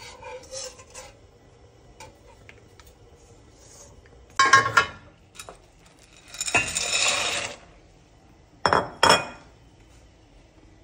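Kitchen clatter of pots and utensils: a wire whisk clicks in a pan briefly, a loud metallic clatter comes about four seconds in, then dry penne pours into a stainless steel pot of boiling water with a rattling rush for about a second, followed by two sharp clinks.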